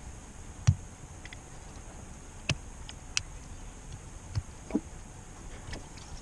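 Scattered small clicks and taps of needle-nose pliers and fingers working at the back of a plastic Molex ECM connector plug, trying to grip a wire cut almost flush. The sharpest click comes under a second in, with a few lighter ones after it.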